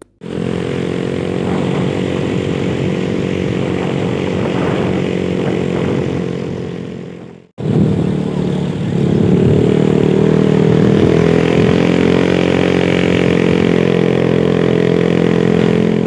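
Small motorcycle engine running steadily at cruising speed, heard close from the rider's seat with wind rushing past. The sound cuts out abruptly for a moment about seven and a half seconds in, then carries on.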